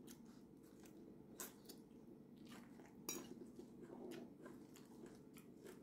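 Faint, quiet chewing of a leafy salad, with a few soft clicks of a fork against a plate.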